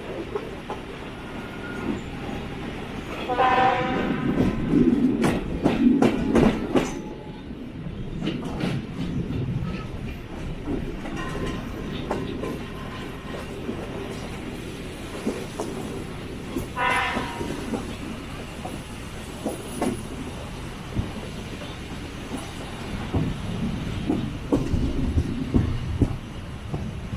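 Steam train running on the track, with a run of sharp wheel clacks a few seconds in. Its whistle sounds briefly twice, about three seconds in and again near the middle.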